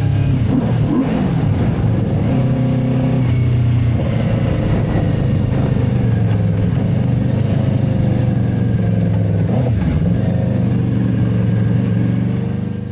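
Benda Dark Flag 500 Commander's V4 engine running on the move, its note dipping and rising again about a second in and once more near the end.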